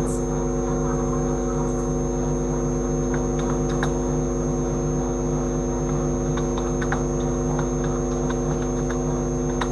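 A steady electrical hum made of several droning tones at once, with a thin high whistle above it and a few faint clicks scattered through.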